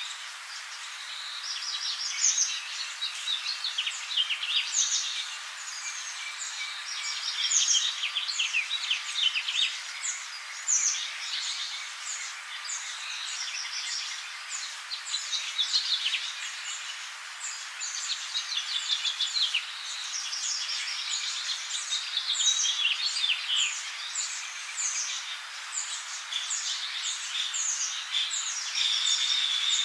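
A dense chorus of many small birds chirping, with quick high twitters overlapping without a break.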